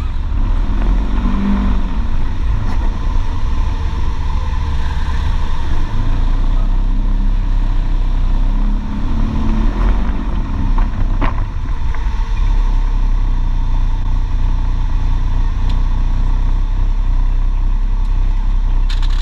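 Polaris RZR XP 1000 side-by-side's twin-cylinder engine running steadily as it drives a rough dirt trail, a constant low drone mixed with wind noise. A single sharp knock comes about eleven seconds in.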